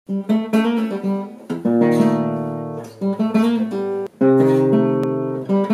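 Intro music on acoustic guitar: picked notes and strummed chords that ring on.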